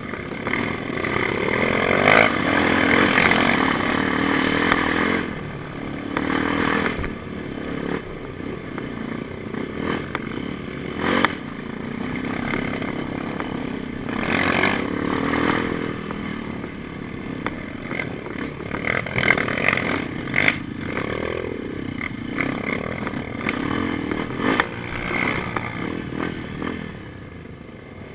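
Motorcycle engine on a rough trail, its pitch rising and falling as it revs, with clattering and scraping from the bike over uneven ground.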